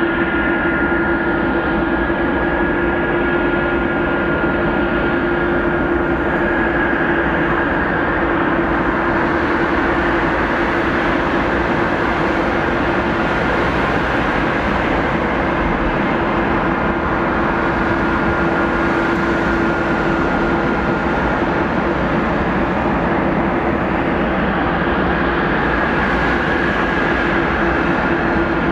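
Jet airliner engines running with a steady whine at two fixed pitches, one low and one higher, over an even rush.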